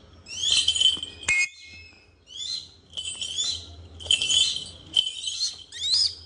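A young hawk calling again and again in short, high-pitched calls, roughly one or two a second. A single sharp click comes about a second in.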